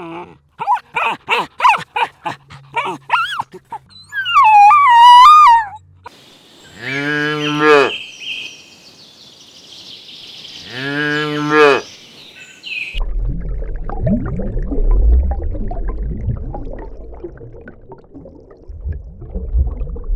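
A cow mooing twice, each moo a long low call of about two seconds, a couple of seconds apart. It is preceded by a run of short animal calls and a wavering higher call, and followed by a low rumbling noise.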